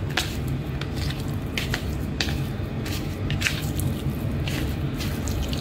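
A hand squishing and turning raw prawns coated in spice powder in a plastic bowl, making short, irregular squelches over a steady low hum.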